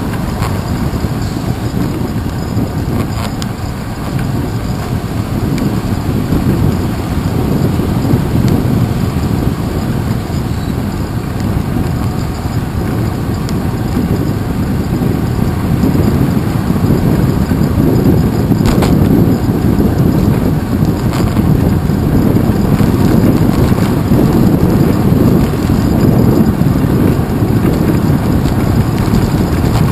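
Wind rushing over a handlebar-mounted GoPro Hero 2 on a moving bicycle: a loud, low rumble that grows louder about halfway through, with a few faint knocks.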